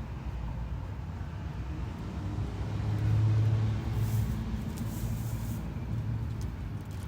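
Low rumble of a road vehicle passing, swelling about three seconds in and then fading.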